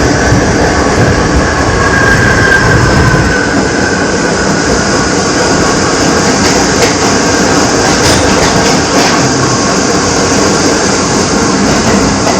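R68 subway car running on the track, heard from inside the car: dense wheel and rail noise with clacking over the rails, under a loud high howl that falls slightly in pitch about two to four seconds in.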